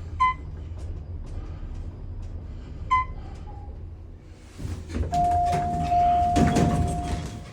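Two short electronic beeps about two and a half seconds apart, then a long steady electronic tone lasting about two seconds, mixed with a rush of noise and a few knocks.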